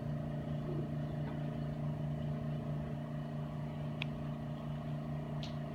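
Steady low machine hum made of several fixed pitches, with a faint sharp click about four seconds in.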